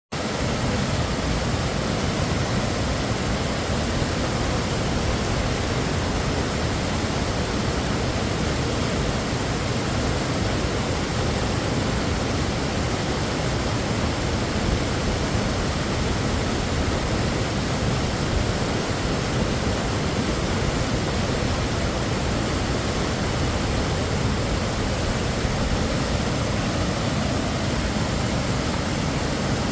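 Multi-tiered mountain creek cascade, whitewater rushing and tumbling over rock ledges in a steady, unbroken rush of noise.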